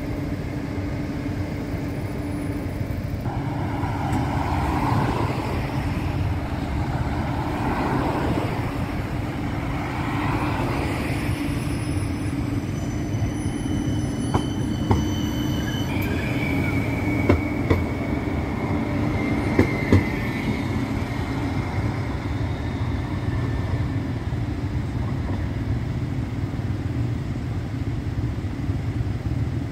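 A CAF Urbos 100 light rail tram pulls away and passes close by, with a steady low rumble and hum. Partway through come a few sharp clicks from the wheels on the rails, and a high whine that falls slowly in pitch for several seconds.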